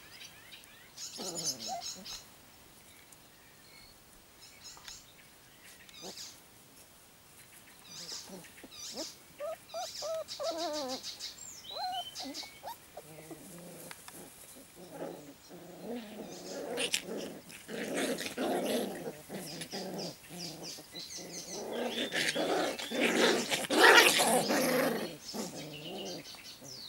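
Young puppies, about four and a half weeks old, play-fighting with small growls and yips in quick runs that grow busier and louder through the second half. The loudest stretch comes near the end, with rustling in the grass. Birds chirp in the background during the first half.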